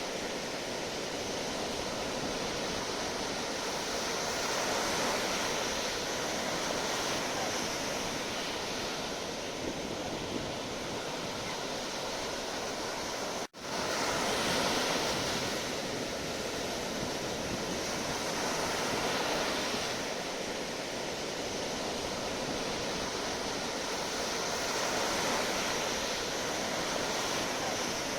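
Sea waves washing ashore: a continuous surf hiss that swells and ebbs about every five seconds. The sound cuts out for an instant about halfway through.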